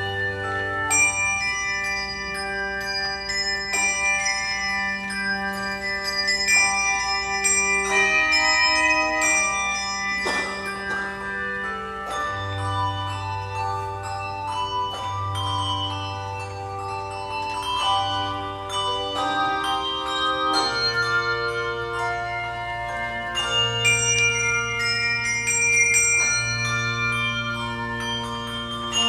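Handbell choir playing a slow piece: ringing handbell chords with long-held low bass bells under them, the harmony changing every second or two.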